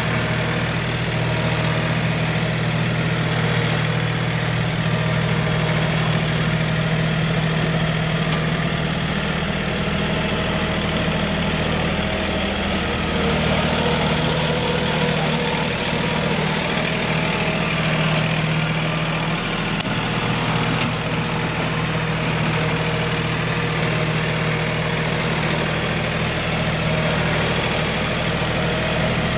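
An engine running steadily at idle, with one short click partway through.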